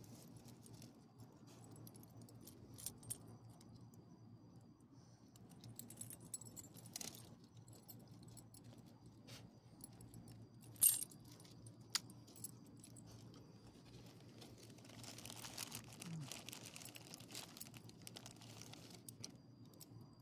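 Metal ID tags and leash clip on a dog's collar jingling and clinking in scattered faint clicks, the loudest about eleven seconds in. A plastic bag rustles for a few seconds near the end.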